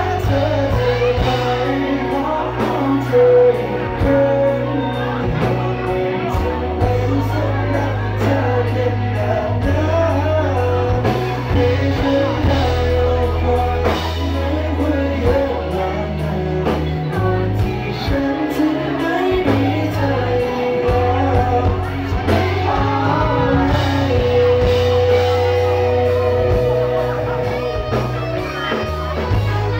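Live rock band music with a singing voice over amplified bass and guitar and a steady drum beat.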